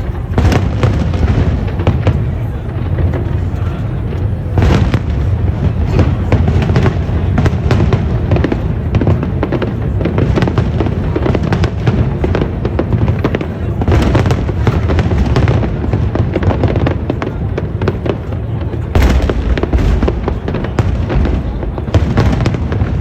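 Fireworks display bursting in rapid, continuous volleys of overlapping bangs with deep booms. Denser clusters hit about five seconds in, again around the middle, and a few seconds before the end.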